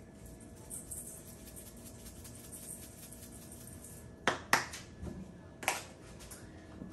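Faint high hiss of seasoning being shaken from a small shaker over sliced potatoes in a metal bowl, then sharp clicks: two in quick succession a little after four seconds in and a third about a second later.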